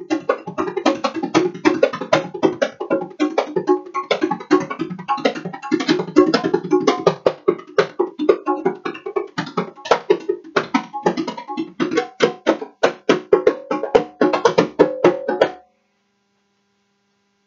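Conga and smaller hand drums played with bare hands in a fast, busy rhythm of ringing open tones and sharp slaps. The drumming stops abruptly about fifteen and a half seconds in.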